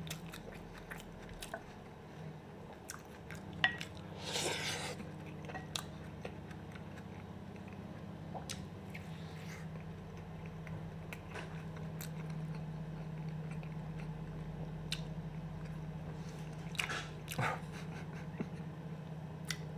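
Close-miked chewing and biting of sausage, with small wet mouth clicks and two louder bites, about four seconds in and near the end, over a steady low hum.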